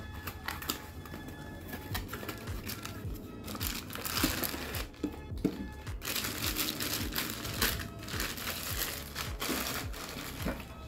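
Cardboard box being opened, then a plastic bag crinkling on and off, longest in the second half, as a stainless steel coffee canister is pulled out of it.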